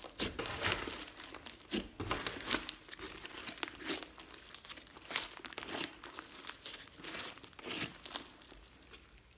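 A large ball of slime studded with small beads and glitter being squeezed, stretched and folded by hand: sticky crackling and popping in irregular bursts, thinning out near the end.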